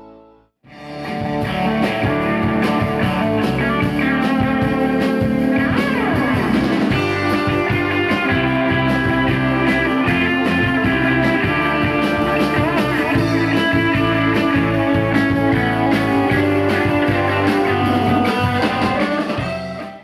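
Instrumental rock band playing live: electric guitar over held Hammond organ chords, with bass and drums. The music comes in after a brief silence about half a second in and cuts off abruptly at the end.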